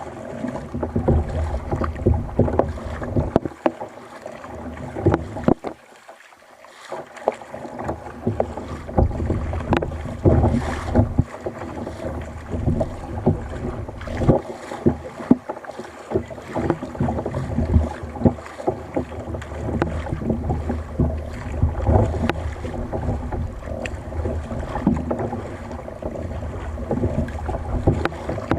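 Water sloshing and lapping against a fishing kayak's hull, with irregular knocks and bumps on the hull. There is a brief lull about six seconds in.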